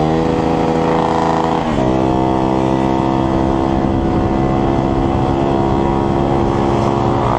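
Motorcycle engine running hard at high revs. Its pitch climbs, drops sharply about two seconds in, then holds steady.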